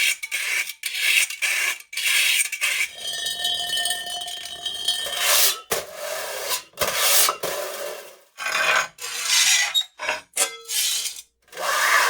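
Metal scraping: a quick series of separate scrapes of metal dragged against metal or a hard surface, each a short rasping stroke. A longer scrape about three seconds in rings with a metallic tone.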